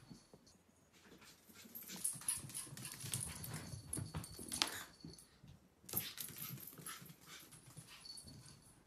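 Pets scampering indoors: quick irregular scrabbling and tapping of paws on the floor with small knocks, the sound changing abruptly about two seconds and six seconds in.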